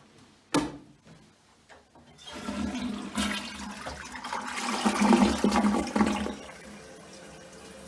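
A toilet flushing: a sharp click about half a second in, then rushing water that builds for a few seconds and drains away.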